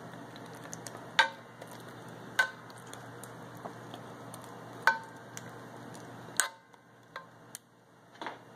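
Metal spoon clinking and scraping against a cast iron Dutch oven while spreading thick condensed cheese soup: four sharp, ringing clinks a second or more apart, with softer taps between.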